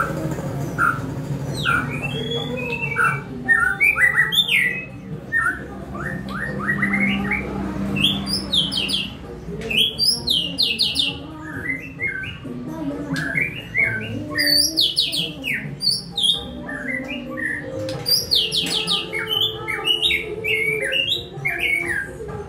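White-rumped shama (murai batu) singing: a long run of rapid, varied whistled phrases with quick rising and falling notes and short gaps between phrases.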